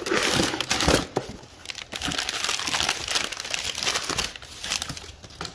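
Brown kraft packing paper crumpling and crackling as hands dig through a cardboard shipping box, loudest in the first second or so.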